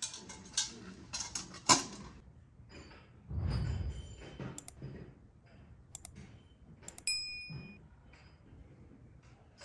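Light metal clanks and knocks as a samovar's lid and chimney pieces are handled, followed by scattered knocks and one brief ringing metallic clink about seven seconds in.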